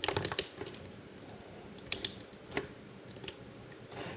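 Light hard-plastic clicks and taps from handling an S.H. MonsterArts Godzilla 2001 action figure: a quick cluster of clicks at the start, then a few single clicks spread through the rest.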